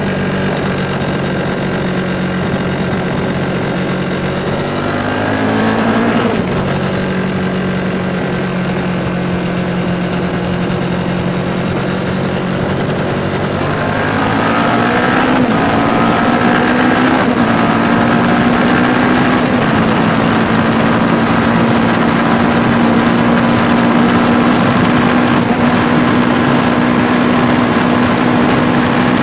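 Kawasaki Ninja 650R's parallel-twin engine running while riding, with wind noise over the microphone. The engine note climbs twice as the bike accelerates, about five seconds in and again about fourteen seconds in, then holds a steady, higher note.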